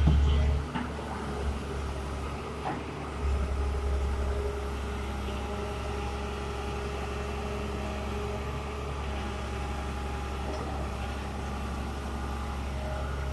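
Heavy diesel engine of earthmoving machinery running steadily at low revs, with a few short knocks in the first three seconds.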